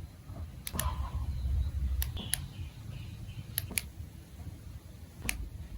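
Hard plastic clicks from a marble-run building-block set being handled, about seven sharp clicks, often two in quick succession, over a low rumble.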